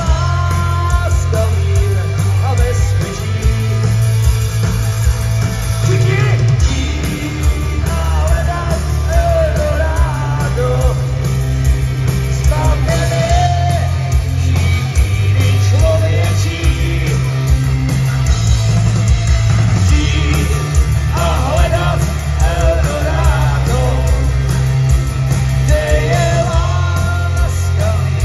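Live rock band playing: electric guitars and a heavy, pulsing bass, with a singer's voice carrying the melody over them.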